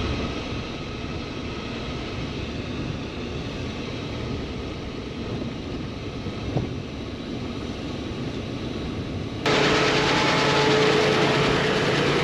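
Steady engine and road noise inside a pickup truck's cab while driving. About nine and a half seconds in it cuts abruptly to a louder engine running steadily outdoors, with a constant hum.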